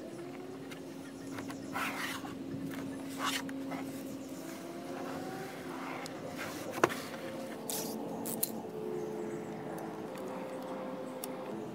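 A low vehicle hum whose pitch shifts a little, under soft rustles and taps of hands pressing a chrome trim strip onto plastic door cladding, with a sharp click a little past halfway.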